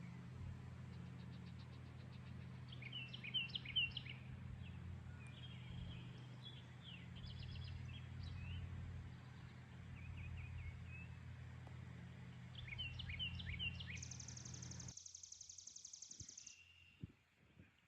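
Songbirds chirping and whistling on and off over a steady low outdoor rumble. Near the end there is a rapid high trill, and the rumble cuts off suddenly.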